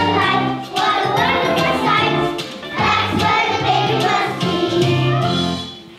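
Children's choir singing a song, which comes to an end near the end.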